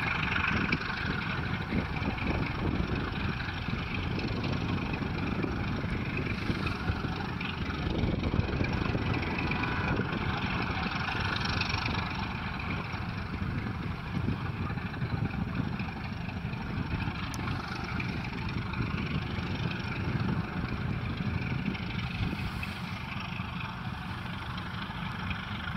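ChME3 diesel shunting locomotives, each with a six-cylinder ČKD diesel, working a loaded freight train. Their engines give a steady rumble that eases a little toward the end.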